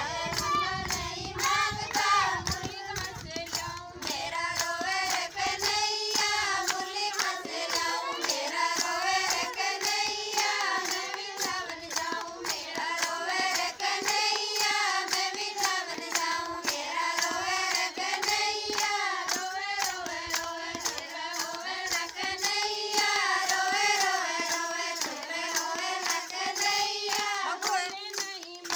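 Women's voices singing a Rajasthani devotional Krishna bhajan, the melody going on without a break, with hand-clapping in time throughout.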